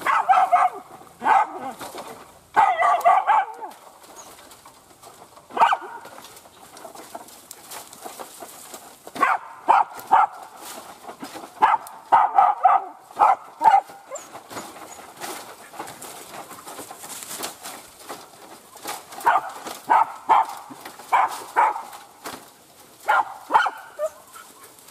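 Hunting dogs barking and yapping in short bursts of several barks, with pauses between bouts, at a hole under a bamboo clump where the monitor lizard they are hunting has taken cover. Light rustling and scratching runs between the bouts.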